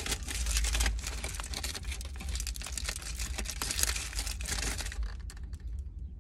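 Aluminium foil wrapper crinkling and crackling as a burrito is unwrapped and handled; it thins out near the end.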